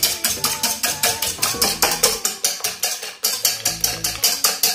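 Wire whisk beating egg whites and sugar in a nonstick saucepan, the wires clicking against the pan in rapid, even strokes, about six or seven a second.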